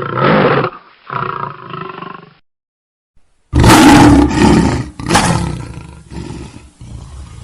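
Creature roar sound effects for a walrus-dog monster: a loud roar, a second shorter roar about a second later, a brief pause, then a louder roar about halfway through that fades into lower, weaker calls.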